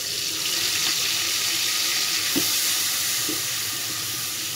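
Sautéed garlic and a spoonful of marinade paste sizzling in hot oil in a stainless steel pot: a steady hiss with a few light ticks of a spatula stirring.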